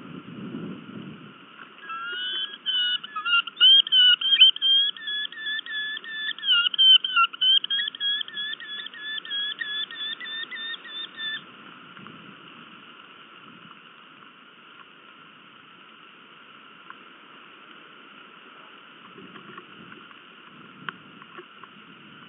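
Eurasian hobby calling at the nest during a food delivery: a rapid run of shrill, repeated notes starting about two seconds in and stopping after about ten seconds.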